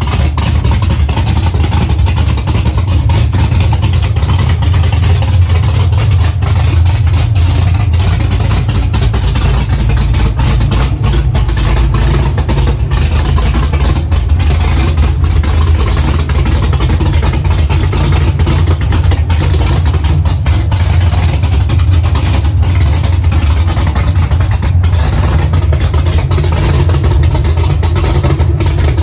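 Supercharged 427 LSX V8 in a ZL1 Camaro with a big custom race cam, idling loudly and steadily through open headers. This is the first startup, being warmed up to operating temperature.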